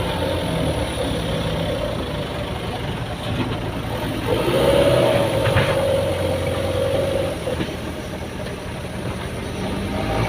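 Heavy diesel engine running steadily, with a held whine that swells about four seconds in and fades about three seconds later.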